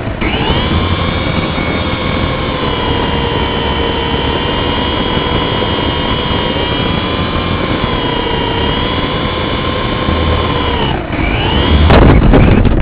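Steady whine of a small motor with a slight waver in pitch. About eleven seconds in the whine dips, then a louder, rough rushing noise follows near the end.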